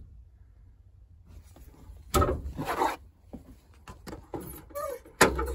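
Handling noise: a burst of rubbing and scraping about two seconds in, then scattered clicks and knocks, with a sharp knock near the end.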